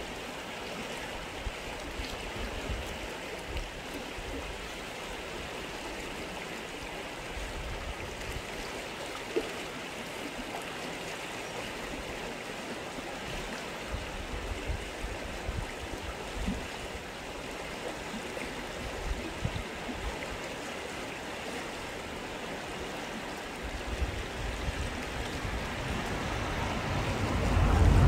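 Shallow river running over stones: a steady rush of flowing water, with a low rumble swelling near the end.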